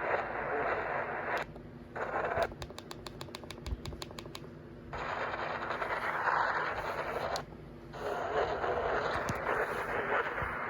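Radio static hiss from a receiver, cutting out briefly three times. During the longest break, of about two and a half seconds, a fast even run of clicks comes through, about eight a second.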